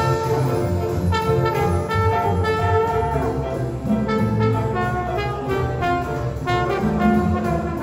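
Live jazz band playing: a trombone leads the melody over piano, upright bass and drums, with a steady swinging beat.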